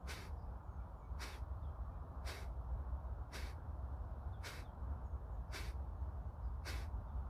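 Kapalbhati breathing: short, forceful exhalations through the nose, one about every second, seven in all. A steady low rumble runs underneath.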